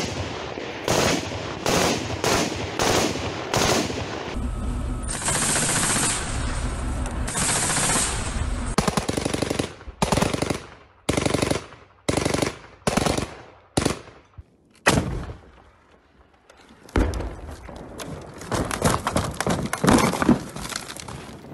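Small-arms gunfire: many short bursts of automatic fire one after another, with denser stretches of continuous firing and a brief lull shortly after the middle before heavy firing picks up again.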